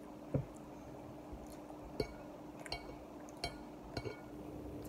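Metal fork clinking against a ceramic dinner plate while cutting and picking up food: about five short, sharp clinks, a second or less apart, over a steady low hum.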